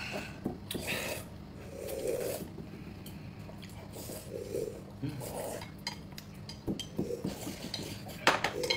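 Someone eating at the table: chewing, with short clicks of utensils against dishes now and then.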